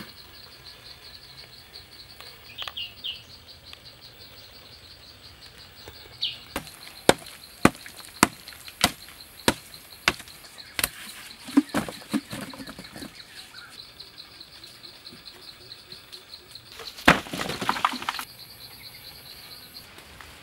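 A steady high chorus of insects, with a run of sharp strikes of a wooden stick digging into hard, clumpy soil, about one and a half a second, from about six to thirteen seconds in. Near the end comes a louder rush of scraping noise about a second long.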